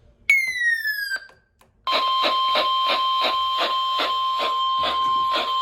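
NOAA Weather Radio warning alarm tone: a steady 1050 Hz beep lasting about four seconds, heralding a severe thunderstorm warning, with faint pulses about three times a second under it. Just before it comes a short electronic tone gliding downward.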